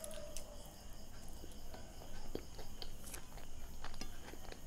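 Close-miked chewing of soft bread and vegetable bhaji, with small wet mouth clicks and smacks scattered throughout.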